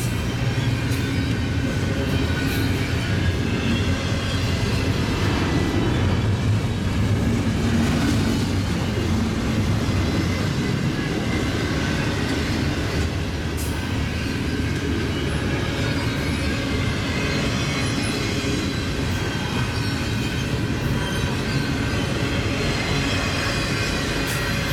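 Steel wheels of an intermodal freight train's double-stack container cars and trailer flatcars rolling past on the rails, a steady low rumble.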